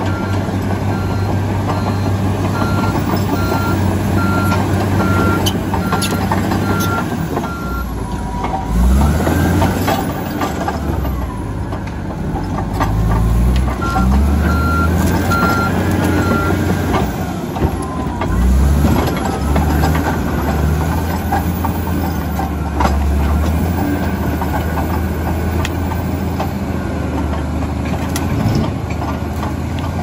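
Komatsu D85EX crawler bulldozer's diesel engine working under load, its revs rising and falling through the middle as it pushes. A reversing alarm beeps steadily for the first several seconds and again briefly about halfway, as the dozer backs up.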